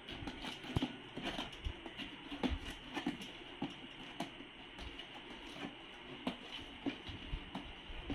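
Thick liquid-soap mixture being stirred by hand in a plastic basin: irregular soft knocks and clicks of the stirring stick against the basin, about one or two a second.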